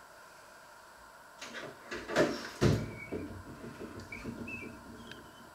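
Kitchen handling noise: knocks and clatter with two loud thumps close together, then small clicks and rustles as the boiled potato is picked up off the wooden cutting board.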